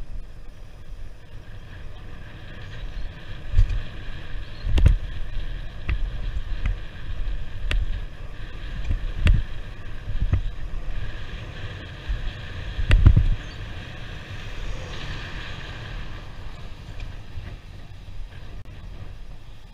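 Wind rushing over a bike-mounted camera's microphone while riding, with a steady low road rumble and several sharp knocks, the loudest about two-thirds of the way through. A little past halfway a vehicle passes close, adding a brighter rushing hiss for a few seconds.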